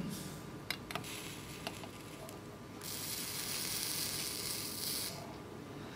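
Flux sizzling on a hot joint as a soldering iron runs tin-lead solder along a seam of an etched sheet-metal kit. A few small clicks come in the first couple of seconds, then a steady high hiss about three seconds in that lasts about two seconds.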